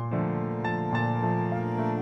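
Background instrumental music: held notes and chords that change every second or so.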